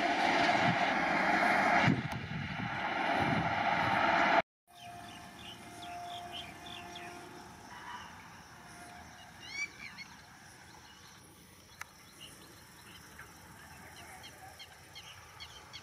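Express train hauled by a WAP-7 electric locomotive running close at high speed, a loud steady rush of wheels on rail that cuts off abruptly about four and a half seconds in. After that comes much quieter open-air background with birds chirping, including a few quick rising chirps near the middle.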